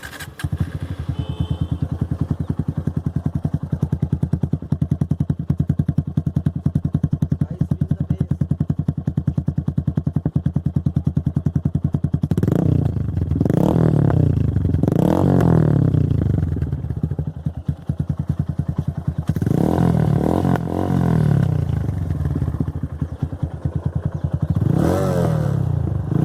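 TVS Apache RTR 160's single-cylinder engine through an aftermarket exhaust, starting up in neutral and idling with a steady low pulsing beat. It is revved in three quick blips about halfway through, a longer rev a few seconds later, and one more blip near the end.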